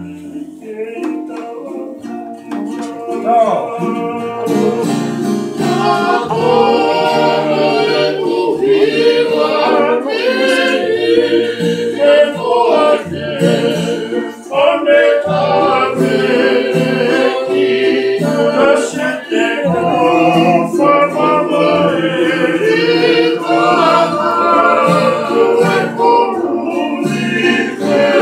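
A group of men singing together to strummed acoustic guitars; the song gets fuller and louder about three seconds in.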